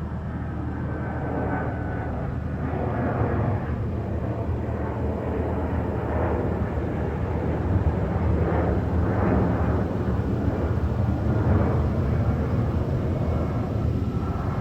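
Steady low rumble of road and engine noise inside a moving car, swelling a little in the middle.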